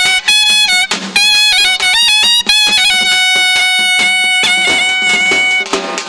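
Folk music led by one loud melody instrument that holds notes and slides between them.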